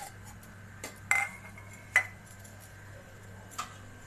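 Stainless-steel kitchen bowls and utensils clinking: four sharp clinks, the loudest two about a second and two seconds in, each with a short metallic ring.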